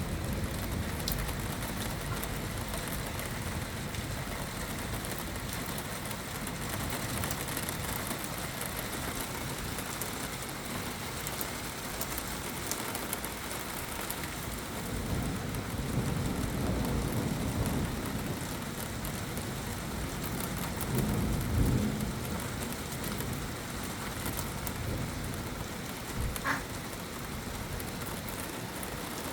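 Steady rain falling, with two low rumbling swells, the first about halfway through and the second, louder, about three-quarters through.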